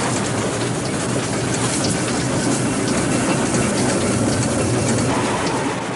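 Narrow-gauge steam train heard from the locomotive's footplate: a steady running rattle and clatter of the cab and the wheels on the track, with many small ticks.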